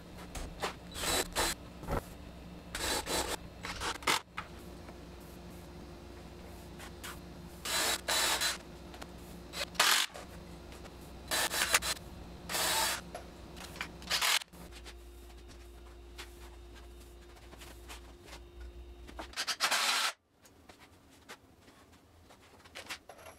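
Cordless DeWalt 20V drill/driver running in about eight short bursts, driving screws into wooden framing boards, over a steady low hum. The background changes abruptly a few times.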